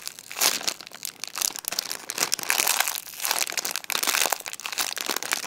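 Crinkling plastic wrapping handled in irregular bursts as a squishy toy is turned over in the hands.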